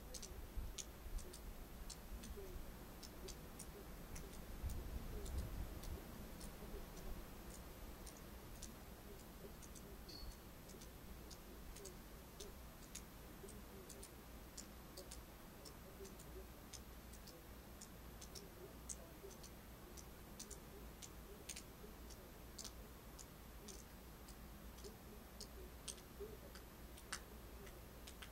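Faint outdoor winter-night ambience: a low wind rumble that swells from about four to six seconds in, with scattered light ticks coming at irregular intervals.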